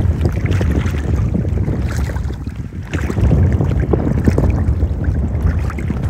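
Wind buffeting the microphone: a loud, gusting low rumble that swells and eases.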